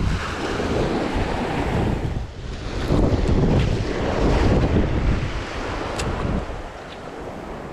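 Waves breaking and washing on a beach, rising and falling in surges, with wind buffeting the microphone.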